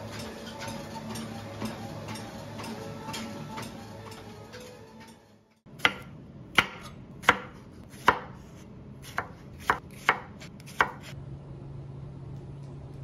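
Folding walking treadmill running, with a steady motor whine and soft regular footfalls. After a brief gap about five and a half seconds in, eight sharp clicks come at uneven intervals over a few seconds.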